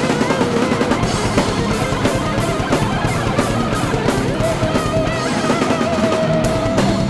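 Heavy metal music with electric guitar over a busy drum kit, a held lead note wavering in pitch through the second half.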